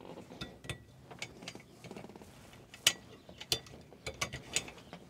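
IronRidge wire clips snapped onto a solar racking rail, with PV wires pressed in and the clips clicked shut: a scattered series of small clicks and snaps, the sharpest near the middle.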